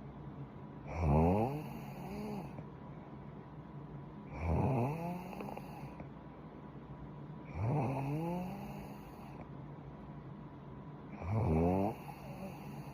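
A young woman snoring in her sleep: four snores about three and a half seconds apart, each a short snore that rises in pitch.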